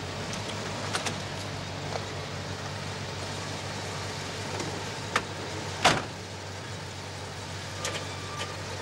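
A car engine idling steadily under a few light clicks, and a car door slamming shut a little before six seconds in.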